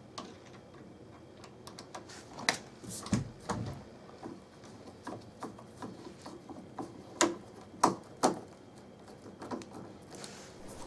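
A long wood screw being driven by hand with a Phillips screwdriver to fix a sliding-door wheel unit in the door: irregular clicks as the screwdriver turns and is reset, a few louder than the rest.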